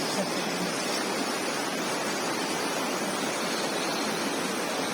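Steady rushing of a stream in spate, a torrent of water pouring over rocks and boulders.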